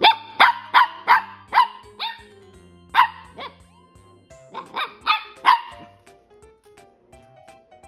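Corgi puppy barking: about a dozen short, high-pitched barks in three bunches that stop about six seconds in, over background music.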